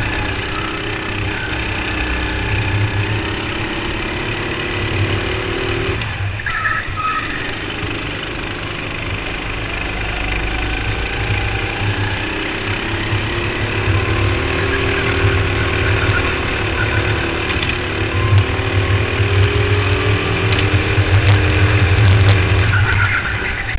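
Kart engine heard close up from the driver's seat while lapping, its note rising and falling as the driver accelerates out of and lifts into corners, with a sharp drop about six seconds in.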